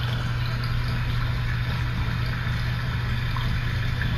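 Steady rain noise, a constant even hiss, over a continuous low hum.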